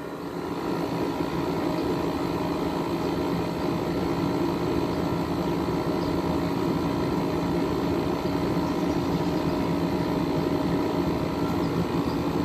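12,000 BTU Frigidaire window air conditioner running steadily, its LG rotary compressor giving a constant hum that the owner thinks sounds like a reciprocating compressor.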